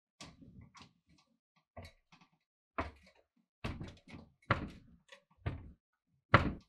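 A slow series of heavy thumps, about one a second, getting louder toward the end.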